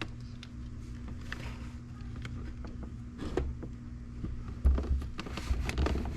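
Light clicks and soft bumps of a fuel pressure sensor being lined up and fitted by hand, over a steady low hum.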